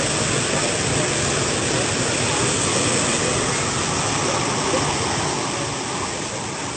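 Waterfall pouring heavily: a steady, loud rush of falling water.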